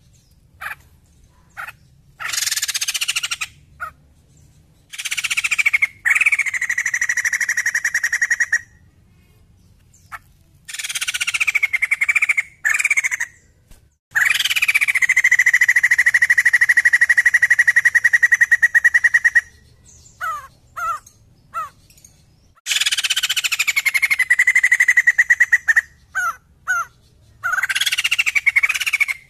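White-crested laughingthrush (poksay jambul) calling loudly in long rattling phrases made of rapid pulses. Each phrase starts high, drops in pitch and then holds steady, the longest lasting about five seconds, with short sharp chirps and brief pauses between phrases.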